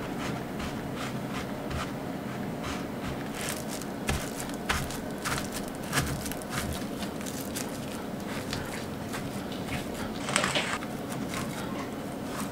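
Buttered cocoa biscuit crumbs crunching and crackling as they are pressed into a fluted tart tin, first by fingertips and then with the plastic-wrapped bottom of a glass. Scattered small crackles, a few louder in the middle and a brief crinkly burst near the end, over a steady low hum.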